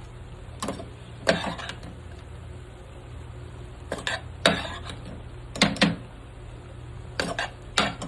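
A metal serving spoon knocking and clattering against a cooking pot in short, sharp knocks, about a dozen in small clusters, as par-boiled rice is spooned onto the chicken for biryani. A low steady hum runs underneath.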